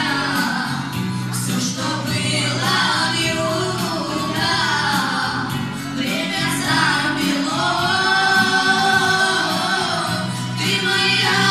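A boy singing a Romani (Gypsy) song over instrumental accompaniment, with a long held note with vibrato about two-thirds of the way through.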